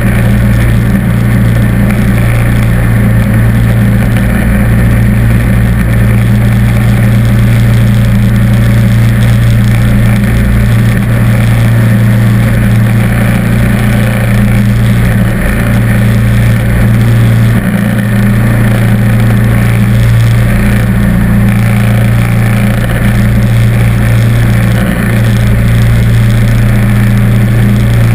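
John Deere D140 lawn tractor engine running steadily at one speed, heard close up, while it drives its snowblower attachment.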